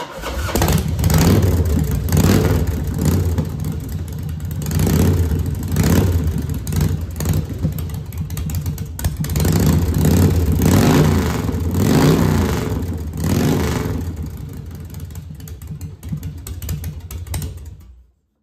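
Harley-Davidson Dyna's V-twin engine starting and running through new stainless steel shotgun drag pipes. It is revved up and down repeatedly, then shut off just before the end.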